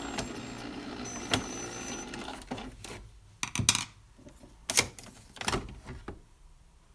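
Coffee machine's motor whirring steadily and fading out over the first two or three seconds, then a few separate sharp knocks and clicks.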